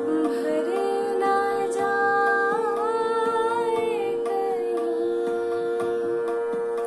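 A woman singing a slow, ornamented ghazal line with wavering glides over a steady held drone note and backing music.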